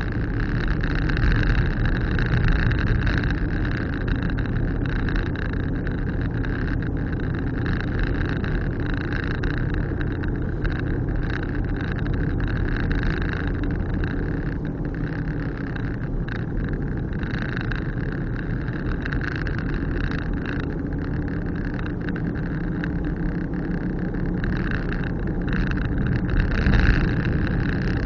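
Car driving on the road, heard from inside the cabin: a steady low rumble of engine and tyres.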